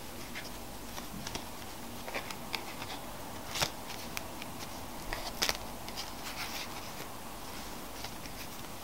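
A deck of playing cards handled in a slow cardistry flourish: packets of cards cut and swung between the fingers, giving soft scattered clicks and taps. The sharpest come about three and a half and five and a half seconds in, over a faint steady hiss.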